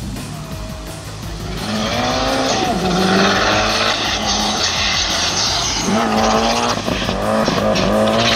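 Hillclimb race car coming up hard: its engine revs rise and fall in repeated sweeps through gear changes and lifts, loud from about two seconds in, over a rushing noise of tyres on tarmac as it brakes and turns through a hairpin.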